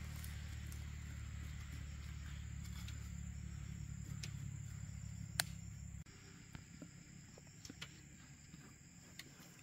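Loose soil scraped into a planting hole with a short-handled hoe and patted smooth by hand: scattered light scrapes, with one sharp tick about five seconds in. A steady low hum lies under the first six seconds and cuts off abruptly, and a faint steady high tone runs throughout.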